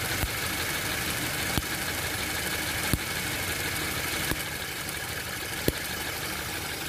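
2012 Toyota All New Avanza engine idling, with a sharp snapping tick about every second and a half: high-voltage sparks jumping near the engine's drive belt, the "cetit-cetit" noise that the owner traced to a faulty imitation V-belt and that stopped once the fan belt was replaced.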